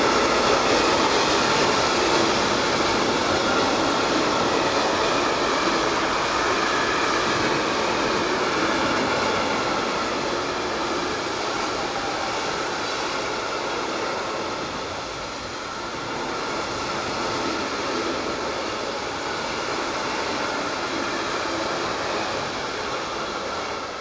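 Freight train of tank wagons rolling past: a steady rumble and rush of wheels on rail, slowly getting quieter as the train goes by.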